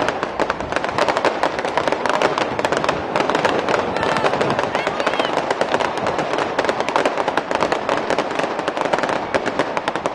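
Aerial fireworks crackling: gold crackle-effect shells bursting overhead, giving a dense, continuous run of rapid sharp pops.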